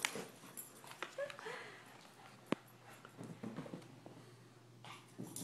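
Dogs play-wrestling on a couch: faint scuffling with a few short, quiet dog vocalizations, and one sharp click about two and a half seconds in.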